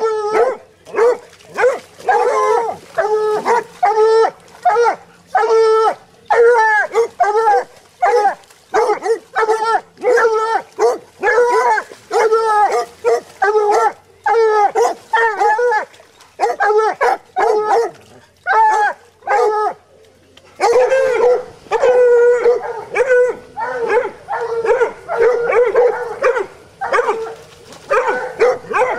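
Hound puppies baying: short, pitched barking calls about two a second, the sound of dogs holding a cornered wild hog at bay. There is a brief lull about two-thirds of the way in, then the baying comes back louder.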